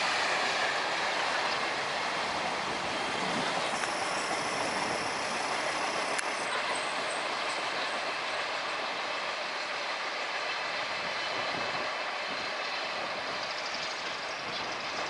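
Freight train rolling past on the line: a steady rush of wheel-on-rail noise that slowly fades as it draws away.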